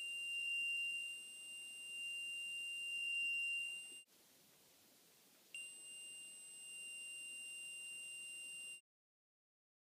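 Arduino alarm buzzer sounding one steady high-pitched beep tone, set off by the PIR motion sensor detecting movement. The tone stops about four seconds in, starts again about a second and a half later, then cuts off suddenly near the end.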